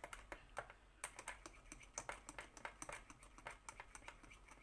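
Faint, quick, irregular clicking of typing on a keyboard.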